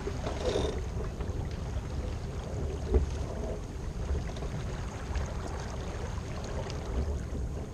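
Wind buffeting the microphone and water rushing along the hull of a J/105 sailboat under sail, with a single sharp thump about three seconds in.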